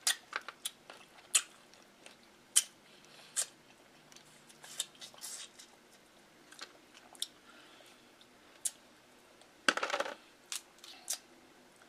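Close-miked eating: scattered sharp wet mouth clicks and smacks while chewing seafood boil and licking sauce from the fingers, with a short crackling burst about ten seconds in as a king crab leg is handled.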